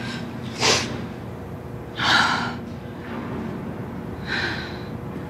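A woman taking deep, gasping breaths while she feels faint, three in all: a short sharp one just under a second in, a longer, louder one about two seconds in, and a softer one near the end.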